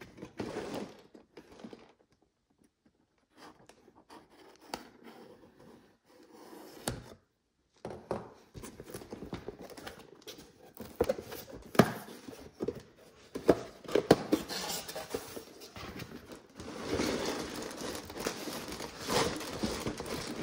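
Cardboard LEGO set box handled and opened by hand: taps, scrapes and sharp clicks of the cardboard lid and flap, with tearing. Toward the end comes denser rustling and crinkling as the plastic bags of bricks inside are moved.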